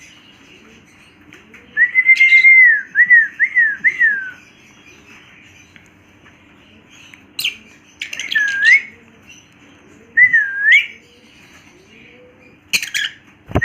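Pet parrot whistling: a held note followed by a quick run of three up-and-down notes, then two swooping dip-and-rise whistles, with a few sharp clicks in between.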